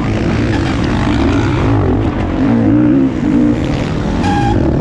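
Motocross bike engine revving up and down as the rider races along a dirt track, heard from the rider's helmet with wind and track noise.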